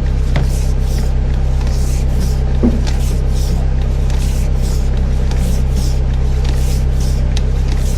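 Sewer jetter's engine running steadily with a low hum, with a rhythmic hiss of water spray about twice a second and a short knock a little under three seconds in.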